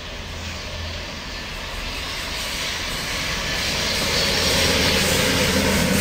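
Renfe electric locomotive-hauled passenger train approaching at speed, a rushing noise that swells steadily as it nears, with a low hum coming in about four and a half seconds in as the locomotive draws close.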